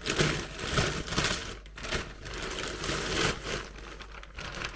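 A mail parcel being torn open by hand: irregular rustling, crinkling and tearing of the packaging.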